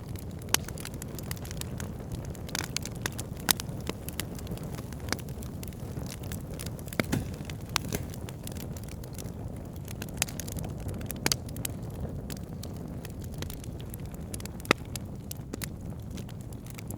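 Fire crackling in a fireplace: a steady low rumble of flame with frequent irregular pops and snaps, a few of them louder, about half a second, three and a half seconds and fifteen seconds in.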